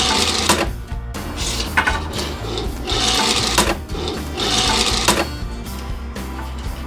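Background music with four rasping, mechanical-sounding bursts over it, each about a second long and coming about every second and a half.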